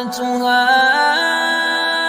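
Male voice chanting Quran recitation in a melodic tajwid style, drawing out one long note that steps up in pitch about a second in and then holds steady.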